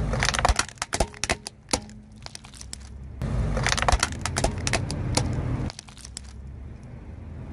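Brittle objects cracking and crunching as they are crushed, with a low rumble underneath. It comes in two bouts of rapid sharp cracks, the second starting about three seconds in.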